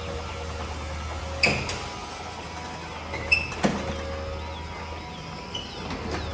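Sectional garage door rising on its electric opener: a steady motor hum with a few sharp metallic clanks from the panels and rollers in the track, the loudest about a second and a half in and again around three and a half seconds in.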